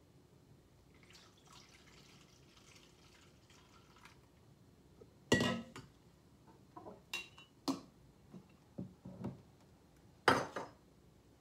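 Juice trickling faintly through a plastic funnel into a glass jar, then kitchenware knocked about on the counter: a stainless steel bowl, funnel and glass jar give two sharp clanks about five seconds apart, with several lighter clinks between.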